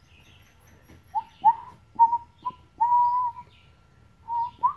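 Airedale Terrier puppy whining: a string of about seven short high whines, each sliding up then holding, one drawn out in the middle. It is the whine of a nervous puppy.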